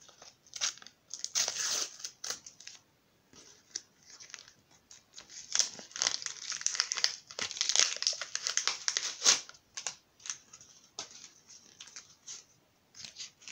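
A sticker packet being torn open by hand and its wrapper crinkled and crumpled, in irregular bursts of crackling that are busiest in the middle, with a few sharp snaps.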